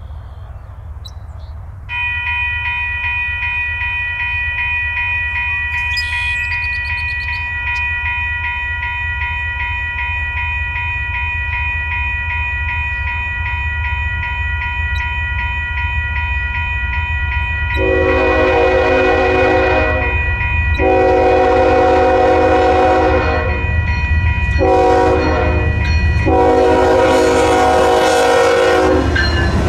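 Crossing bell ringing steadily over the low rumble of an approaching BNSF GE ES44DC diesel locomotive. In the last third its Nathan K5HL five-chime air horn sounds long, long, short, long: the standard grade-crossing warning.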